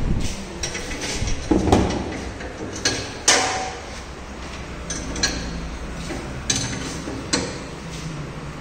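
Scattered sharp clicks and knocks of metal and hard plastic as the wheel-guard arm is fitted at its pivot on a tyre balancing machine, over a steady low hum.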